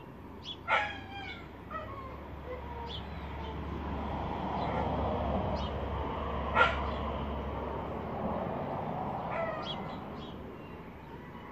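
Short, high animal calls, each falling in pitch, come in scattered bursts: the loudest about a second in and again past the middle, with a quick cluster near the end. Underneath, a rushing background noise swells in the middle and fades.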